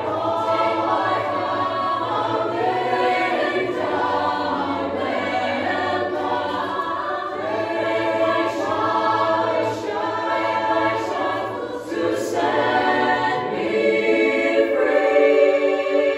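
Mixed high school choir singing a cappella in several-part harmony, holding long chords over a low bass line. The singing thins briefly about twelve seconds in, then the parts come back fuller and louder near the end.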